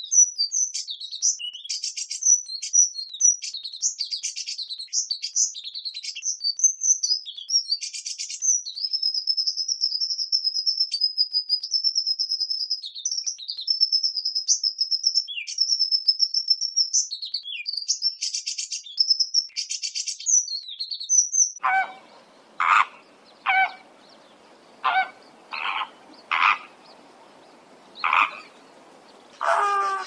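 A small bird's high chirps, twitters and long steady trills. About two-thirds of the way in, it gives way to a faint hiss broken by about eight short, lower calls from water birds.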